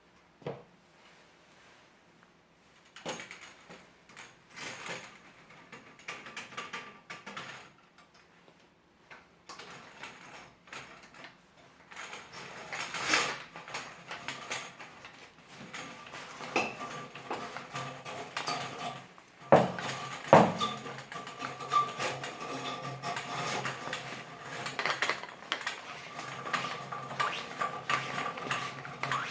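Spring drain auger cable rattling and clicking as it is fed and turned through a toilet's trap bend, with metal-on-porcelain clatter. Two sharp knocks about two-thirds of the way in, and a steady tone underneath the later rattling.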